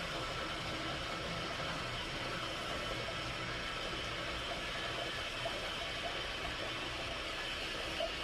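Old-fashioned toilet with water running steadily as the cistern refills after the flush, a constant hiss with no breaks.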